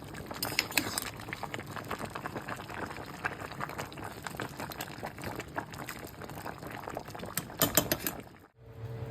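Chicken soup being poured and ladled from a small pot into a bigger one: splashing, sloshing liquid with clinks of metal on metal, and a few sharp knocks near the end. It then cuts off suddenly to a steady low hum.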